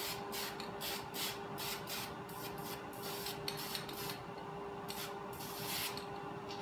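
Aerosol spray paint can spraying in a quick series of short hissing bursts, with a couple of longer sprays near the end: light mist coats laid on to keep fisheye from showing where chrome shows through.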